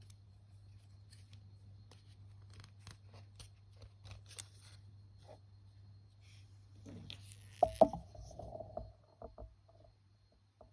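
Small plastic parts being handled, with scattered light clicks and taps. About three quarters of the way through comes a louder clatter with a sharp knock, followed by a short, broken buzzing whine, over a steady low hum.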